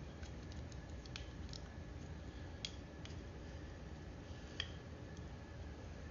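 A few faint, scattered clicks and ticks of a small tool against the plastic carburetor as the float pin is worked out, over a steady low hum.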